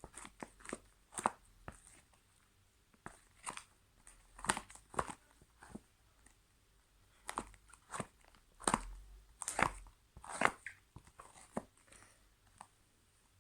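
Thick homemade slime being stirred and worked, giving an irregular run of short sticky squelches and crackles.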